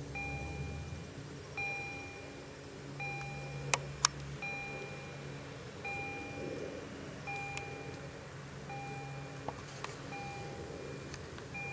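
Railway level crossing warning bell ringing, a ding repeated about every one and a half seconds, which signals that a train is approaching. Two sharp clicks come about four seconds in.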